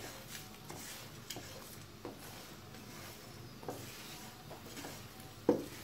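Whole spices being stirred with a slotted spatula in a dry non-stick pan as they dry-roast: faint, scattered scrapes and light clicks of seeds and spatula against the pan, with a slightly louder knock near the end.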